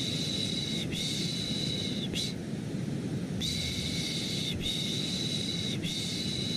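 Rhythmic 'shh' shushing for lulling a baby, layered over steady low white noise. The shushes come in runs of about a second each: two long shushes and a short one, a pause of about a second, then three more long ones.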